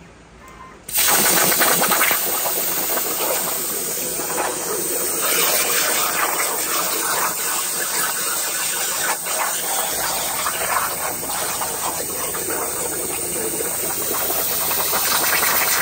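CNC plasma torch cutting 0.090 aluminum sheet: the arc strikes abruptly about a second in and then runs as a steady, loud, crackling hiss.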